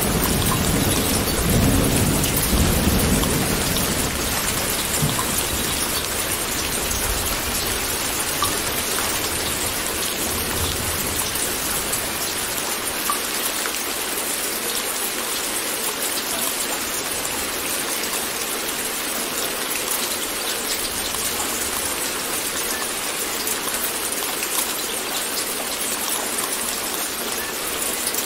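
Steady rain falling, with a low roll of thunder in the first few seconds that dies away.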